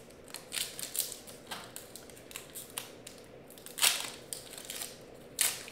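Foil wrapper of a trading-card pack crinkling and crackling as it is handled and torn open, in irregular sharp crackles, the loudest about four seconds in and again near the end.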